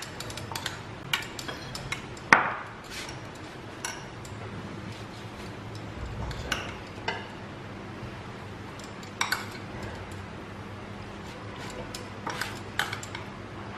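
Scattered light clinks and taps of kitchen utensils against a dosa tawa and a bowl, with one sharper knock about two seconds in, over a steady low hum.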